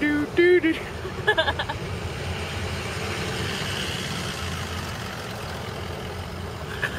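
Road and traffic noise through an open car window: a steady rumble with a hiss. Within the first second and a half, a few short, high-pitched squeaky calls.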